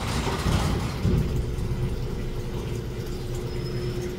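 A steady low rumble with a constant hum, as from an engine or motor running, with a brief rush of noise right at the start.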